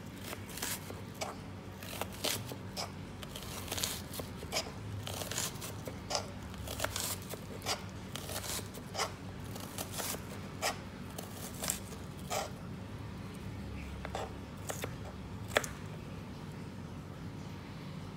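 Kitchen knife chopping an onion on a plastic cutting board: crisp, irregular chops through the onion and knocks of the blade on the board, one or two a second.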